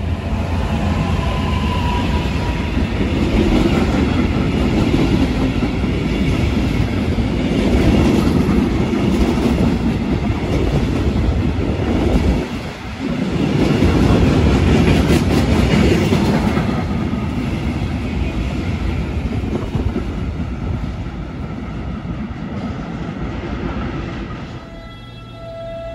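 Freight train hauled by an electric locomotive passing close by: a continuous rumble with wheels clattering over the rail joints as the wagons go past, briefly dipping about halfway and fading near the end as the last wagons pass.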